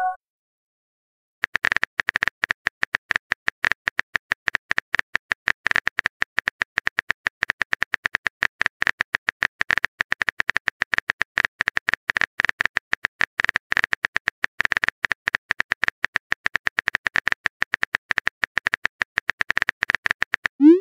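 Smartphone keyboard click sounds, a rapid string of short taps as a message is typed out, starting about a second and a half in.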